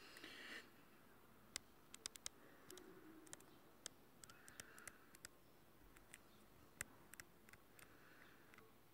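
Near silence: faint room tone with a brief rustle at the start and scattered faint sharp clicks and ticks.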